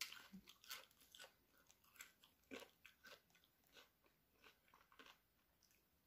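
Faint close-up chewing and crunching of a mouthful of grilled pork salad: a run of short, crisp clicks that grow softer and sparser toward the end.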